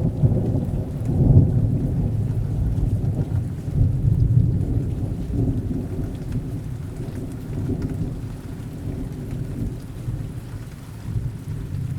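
Thunderstorm: a long low roll of thunder that swells about a second in and again around four seconds, then slowly dies away, over steady falling rain.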